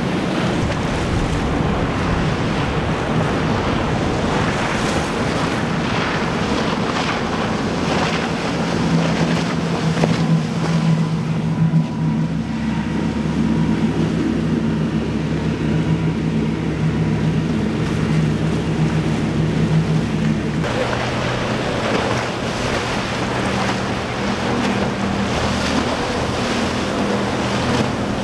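Motorboat engines running steadily over rushing water and waves, with wind buffeting the microphone. The engine sound shifts abruptly about three-quarters of the way through.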